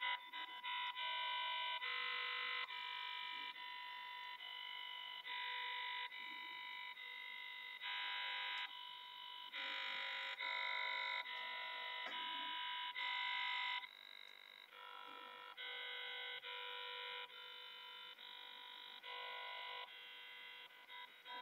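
Harsh synthesized electronic tones from the Sulfoxide.exe malware playing through a laptop's speakers, a buzzy pattern that jumps to a new pitch cluster about every half second, with no high end above the upper mids.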